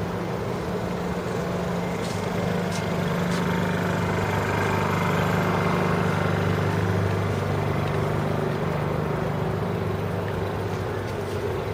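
Heavy engine running steadily with a low hum, growing louder toward the middle and then easing off. A few faint clicks come about two to three seconds in.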